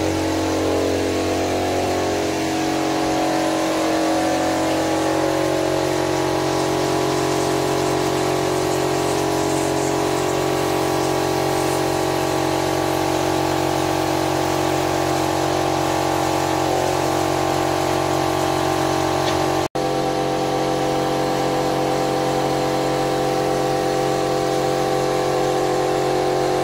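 Pest-control thermal fogging machine running steadily, a constant pitched engine drone. The sound breaks off for an instant about twenty seconds in.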